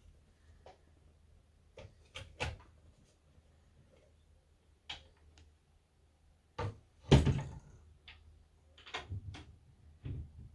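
Wooden sewing machine cabinet being handled: a series of knocks and clicks of drawers and parts being shut, the loudest about seven seconds in.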